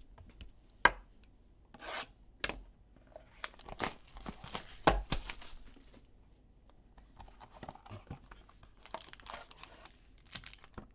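A sealed trading card box being torn open by hand: plastic wrap and cardboard tearing and crinkling. Several sharp tears and snaps come in the first few seconds, the loudest about five seconds in, then softer crinkling.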